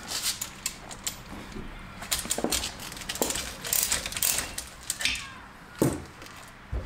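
Irregular metallic clicks and clinks of hand tools working the threaded screws of a coil-spring compressor as it is loosened off a strut assembly, with two sharper knocks near the end.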